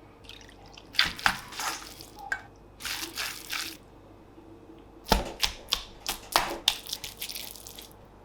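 Kitchen food-preparation noises: sharp knocks and taps about a second in and again in a quick cluster from about five seconds, with a short hiss-like stretch around three seconds in.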